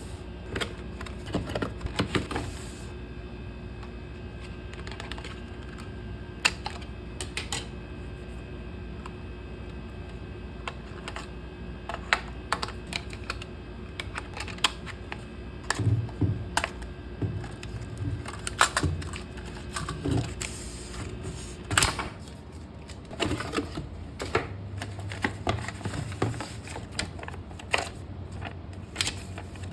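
Irregular clicks, taps and knocks of a card-machine box and its contents being handled and unpacked, over a steady low hum.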